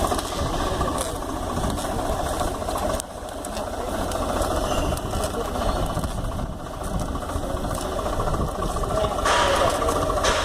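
Tractor engine running steadily as it pulls a mulching machine, growing a little louder near the end.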